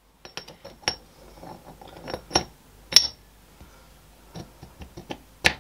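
Steel parts of a lathe chuck clinking and knocking together as the scroll is dropped into the chuck body and seated: a series of light metallic clicks, the sharpest about three seconds in and just before the end.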